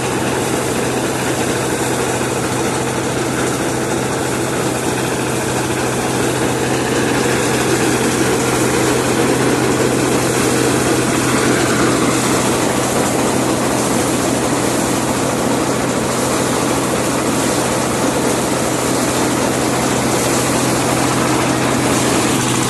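Small generator engine on a homemade rice harvesting machine running steadily, with a constant low hum under a dense mechanical noise.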